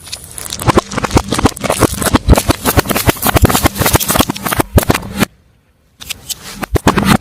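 Brittle objects cracking and crunching under a car tyre: a dense run of sharp snaps and crackles for about five seconds, a brief pause, then another burst of crunching near the end.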